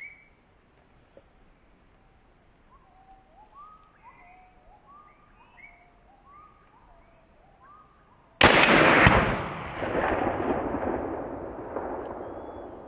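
A single loud scoped-rifle shot about eight seconds in, taken at a coyote, followed by a long echo that rolls away and fades over several seconds.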